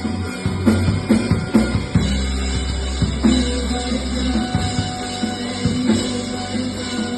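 A rock band playing live, the drum kit to the fore with cymbals and bass drum, a run of quick drum strikes in the first two seconds and then a steady beat.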